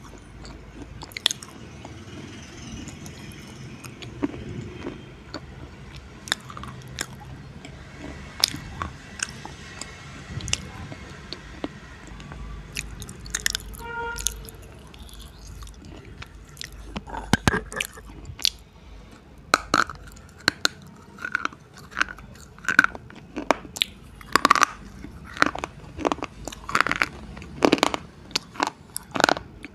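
Slate pencils being bitten and chewed close to a microphone: sharp, dry crunches, scattered at first and coming in a quick, regular run through the second half.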